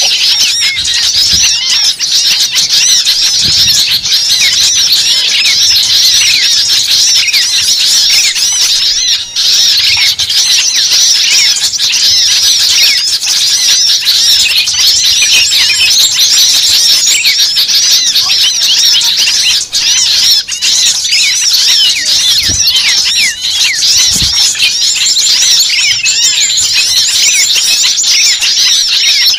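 A dense, steady chorus of many small birds chirping and chattering at once, their calls overlapping without a break.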